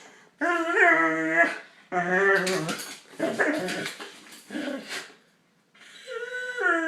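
Dog making strange pitched whining, grumbling vocal noises: about four short bent-pitch calls, a brief pause, then a longer call starting near the end.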